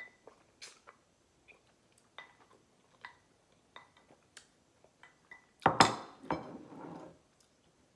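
A fork or other cutlery clinking and tapping against a dish while pasta is eaten, with a scattering of short clicks. About six seconds in there is a louder noisy sound lasting about a second and a half.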